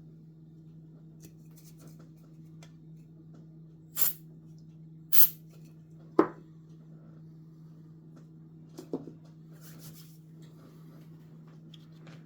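Small hand-work noises while fitting printed plastic parts: two short scratchy hisses about a second apart, then a sharp click, and a lighter knock later, over a steady low electrical hum.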